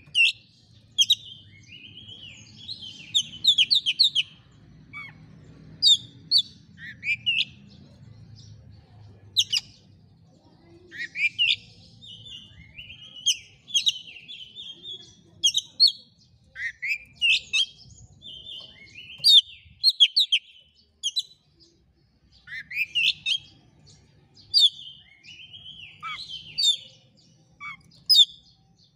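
Oriental magpie-robin singing a long, varied song of loud whistled and chirping phrases, many with quick rising sweeps, one phrase after another every second or two.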